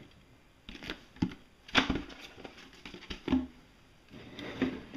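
Clear plastic packaging crinkling and knocking as a toy is handled and lifted out of it, in a series of short, irregular rustles and clicks.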